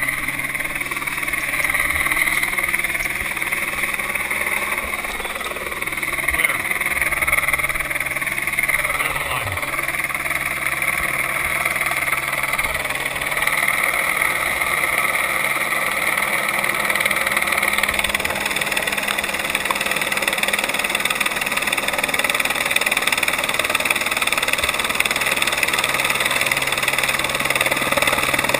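Helicopter hovering nearby, its engine and rotor running steadily.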